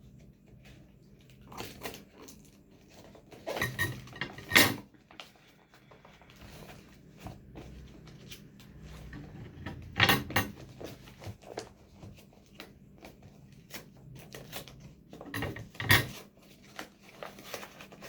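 Hands opening and handling a package: scattered rustles and clicks with three louder knocks, about four and a half, ten and sixteen seconds in.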